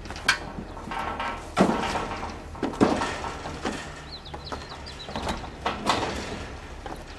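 Aluminium side gates on a livestock trailer's loading ramp being swung out and set in place, with a series of irregular metallic clanks and knocks.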